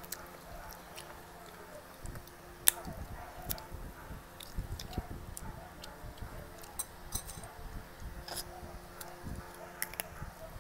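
Close-up eating sounds: chewing, with scattered sharp clicks and smacks, the loudest a single sharp click about three seconds in.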